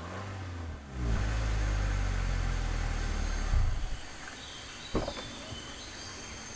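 Car engine rumbling low as the car pulls up, going quiet about four seconds in. About a second later comes a single sharp click of the car door latch opening. Insects buzz steadily in the background.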